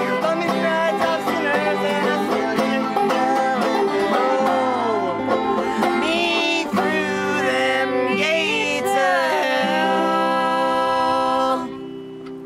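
Live acoustic music playing the closing bars of a folk song, ending on a held final chord that stops about eleven and a half seconds in and rings away.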